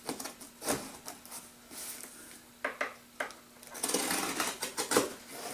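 Small knife cutting the packing tape along a cardboard box's seam: a few scattered scrapes and clicks, then a denser stretch of scratchy slicing near the end.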